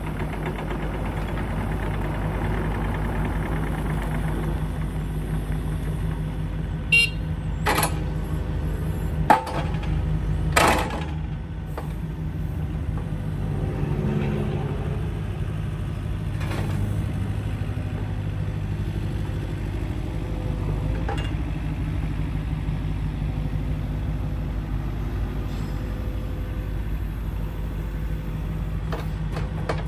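Yanmar ViO50-6A mini excavator's diesel engine running steadily while the boom, arm and bucket are worked. A few sharp clanks come between about seven and eleven seconds in.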